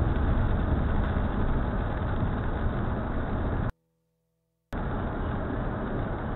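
Steady driving noise of a car on a rain-wet road, heard from inside the cabin: an even low rumble from engine and tyres. The sound drops out completely for about a second midway, then carries on unchanged.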